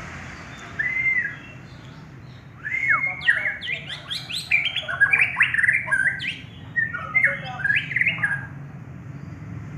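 Murai batu (white-rumped shama) singing. There is one short whistled note about a second in, then from about two and a half seconds a fast, varied run of whistles and sweeping notes lasting some six seconds.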